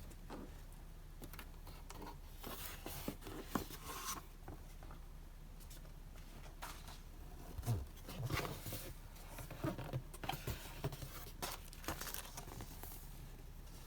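Packaging being handled by hand: irregular rustling and crinkling of paper and plastic with small taps and clicks, and a soft thump about eight seconds in.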